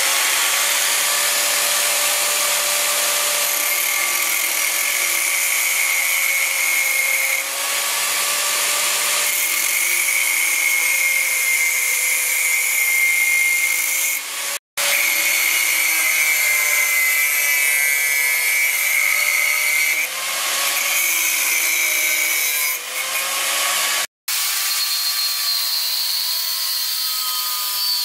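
Electric grinder cutting and grinding a forged spring-steel knife blank, its motor whine wavering and dipping as it is pressed into the metal. The sound stops abruptly for a moment twice, then resumes.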